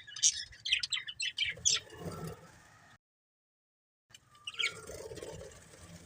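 Budgerigars chirping: a quick run of short, high chirps that fades out after about two seconds and cuts to silence. After about a second it resumes with softer, lower chatter and a single chirp.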